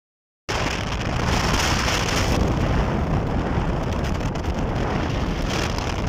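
Wind rushing over the microphone and road noise of a moving vehicle, a steady hiss with low buffeting, starting suddenly about half a second in.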